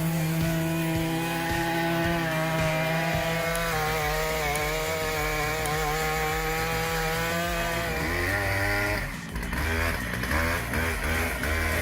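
Big chainsaw running at full throttle in a cut, its engine note holding steady with slight wavers under load. About nine seconds in, the pitch rises briefly and a different, lower engine rumble takes over.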